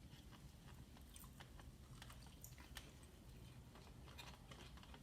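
Faint chewing and small mouth clicks of a person eating a bite of fried chicken sandwich.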